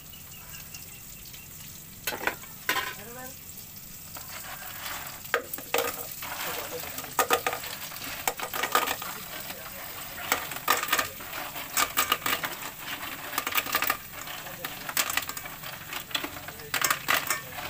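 Tulya (freshwater clams) in their shells being stirred in a metal pot, the shells clattering and scraping against the pot over a sizzle of sautéing. The stirring starts about two seconds in and gets busier after about five seconds.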